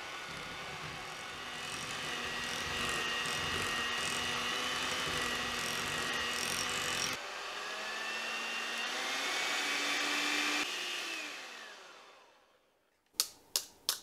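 Electric hand mixer running, its beaters whirring through cream cheese in a glass bowl, the motor whine stepping up and down in pitch. Near the end the motor winds down to a stop, followed by three sharp taps as the beaters are knocked against the bowl.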